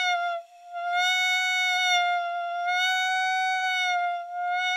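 Clarinet mouthpiece and barrel played alone, holding one bright, buzzy high note that reads A-flat on the tuner. The pitch sags slightly and the tone briefly falters about half a second in and again near the end as the tongue drops from an 'ee' to a 'ya' position, showing how tongue voicing changes the pitch.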